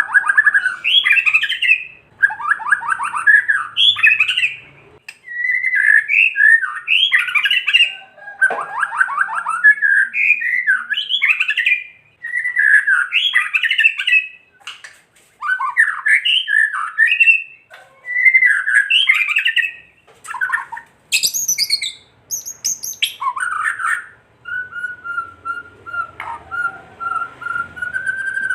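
White-rumped shama (murai batu) singing its 'kretekan': a quick run of short rattling, crackling phrases, each a second or two long, broken by brief pauses. Near the end it holds one long steady whistle.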